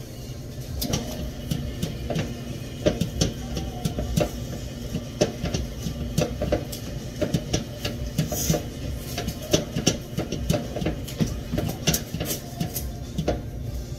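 Kitchen utensils clattering and knocking during baking preparation: irregular sharp clicks, about two or three a second, over a low steady hum.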